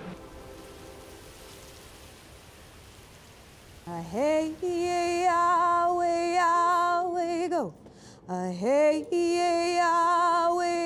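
A woman singing unaccompanied: two long held notes with vibrato, each sliding up into the note and falling away at its end, starting about four seconds in after a faint fading tail of music.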